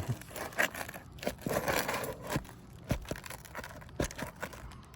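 Brittle, aged asphalt roof shingle being worked loose, crackling and crumbling as pieces break off, with scattered scrapes and light clicks of a tool against the shingles.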